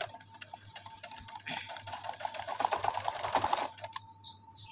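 Domestic electric sewing machine stitching fabric in one short run of rapid, even needle ticks, starting about one and a half seconds in and stopping abruptly about two seconds later. A few light clicks come before the run.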